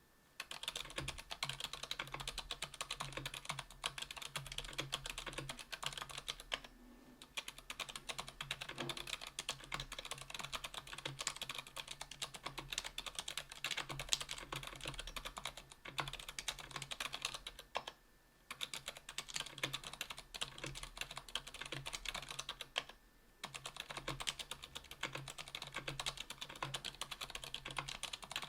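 Continuous fast typing on a 60% aluminium mechanical keyboard with stock Kailh BOX Silent Brown tactile switches (60 g) on an aluminium plate and GMK keycaps: soft, damped keystrokes, with brief pauses about 7, 18 and 23 seconds in.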